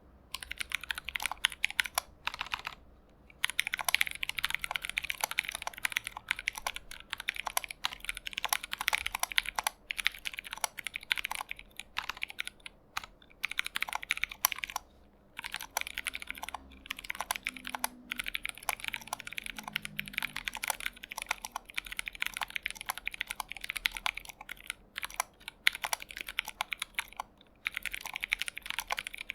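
Typing on a custom Alice-layout mechanical keyboard in a stacked acrylic case, with lubed Durock T1 tactile switches and PBT cherry-profile keycaps: fast, continuous keystrokes with a few short pauses.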